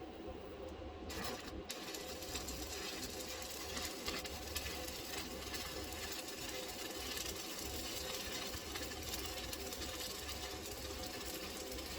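Electric arc welding: the arc strikes about a second in and then crackles and sizzles steadily over a low steady hum.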